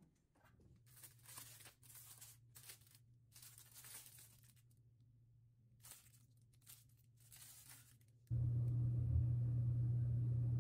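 Clear plastic wrapping of a pair of disposable hotel slippers crinkling and rustling in irregular bursts as they are handled. About eight seconds in, a loud steady low hum starts abruptly.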